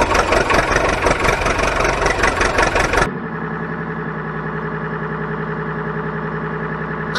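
Vehicle engine running rough and loud for about three seconds, then cutting sharply to a steady, quieter idle.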